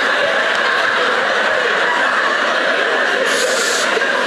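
Theatre audience laughing steadily, a continuous crowd laugh with no words over it, with a brief high hiss about three seconds in.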